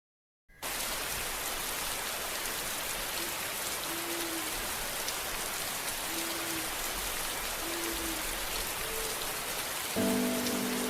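Steady rain falling on a surface, an even hiss that starts about half a second in. A few faint short low notes sound over it, and soft sustained music chords come in near the end.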